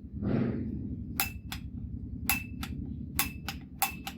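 Push-button piezo igniter on a propane torch being clicked while testing for a spark, with no flame: four presses, each a sharp snap followed by a second click a fraction of a second later, with a short metallic ring.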